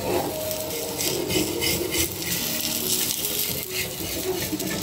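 Sooji cheela sizzling in oil on a hot tawa, with the scrape and clicks of a perforated steel spatula being worked under its edge to loosen it from the pan.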